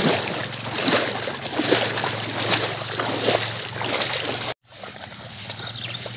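Splashing and sloshing steps of a cow being led through shallow floodwater. About four and a half seconds in, the sound cuts off abruptly, then comes back as quieter outdoor noise.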